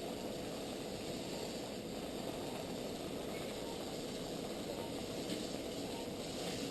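Steady hum and hiss of operating-room equipment, with a faint constant tone and no distinct events.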